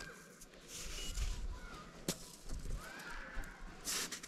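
Snow crunching and scraping in a few short bursts as a hand and a sneaker dig into a hard-packed snowbank, with one sharp click about two seconds in.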